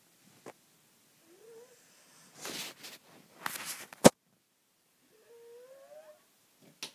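Snoring: two noisy rasping breaths in the middle, with short squeaky whistles rising in pitch before and after them. A sharp click, louder than the rest, comes right after the second breath.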